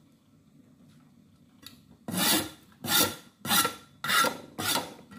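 A steel cleaver scraped in five rough rasping strokes at a steady pace, starting about two seconds in.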